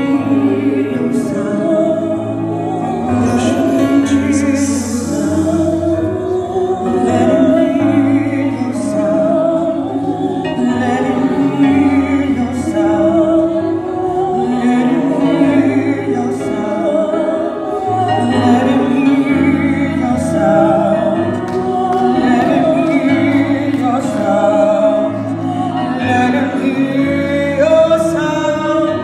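Live gospel worship song: several voices singing sustained, flowing lines over keyboard accompaniment with held bass notes, heard through the hall's PA speakers.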